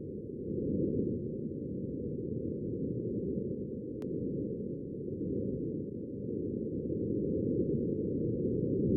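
Low, muffled rumble of wind, presented as a recording of wind on Mars; a steady noise with nothing above the low range, growing a little louder near the end.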